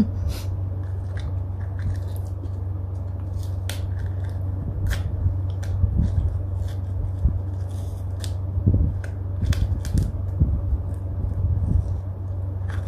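Scraping and picking at frozen-hard yogurt in a small plastic cup with a utensil: irregular sharp little clicks and scratches, over a steady low hum.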